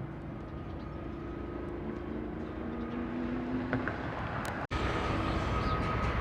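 Steady motor-vehicle engine noise, with an engine tone that holds and then fades out a little before the end; the sound cuts out for an instant near the end, then the rumble returns with a steady high whine.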